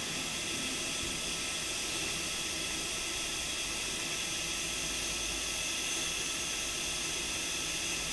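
Hot air rework station blowing a steady hiss of air onto the phone's logic board, heating it to lift a small capacitor off a donor board; the hiss stops near the end.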